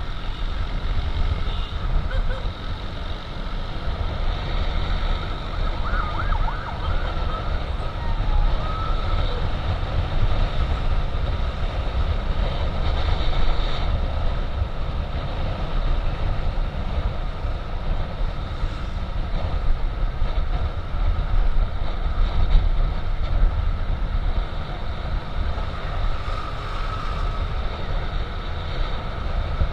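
Wind rushing over the microphone and a motor scooter running along the road, with an emergency siren wailing in the background, clearest about six to eight seconds in.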